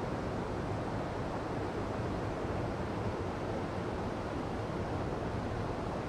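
Mountain stream rushing over boulders into a pool: a steady, even rush of white water.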